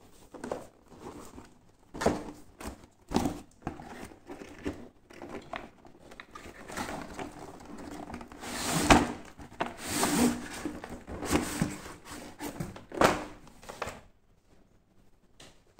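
A cardboard toy box being handled and its lid worked off: irregular scraping, rustling and knocking of cardboard and plastic packaging, busiest around the middle and dying away near the end.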